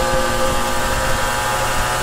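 Suzuki RGV250 VJ22 two-stroke 90° V-twin, fitted with TYGA expansion chambers, VHM cylinder heads and rejetted carburettors, running under steady throttle at constant cruising revs. It is a continuous, even buzz with no gear change.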